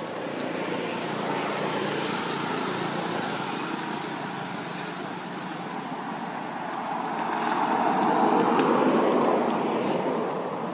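Steady background rumble of road traffic, swelling and fading about eight seconds in as a vehicle passes.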